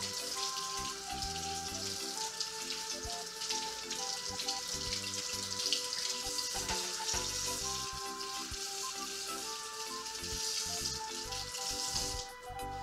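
Kitchen sink tap running, water splashing over a cleaned blue crab as it is rinsed, until the water is turned off shortly before the end. Background music with held notes plays underneath.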